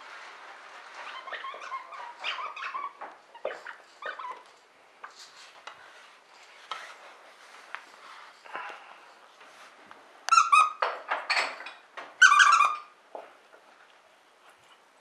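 Dog chewing and pressing a plush fox toy, setting off its squeaker. The squeaks come loudly in two bursts about two thirds of the way through, after softer mouthing and chewing noises.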